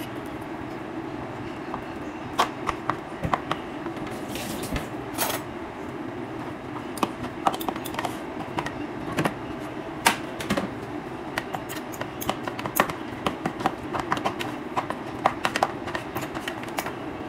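Irregular light clicks and taps of hands and fingers working food into a ceramic bowl on a kitchen counter, over a steady low hum.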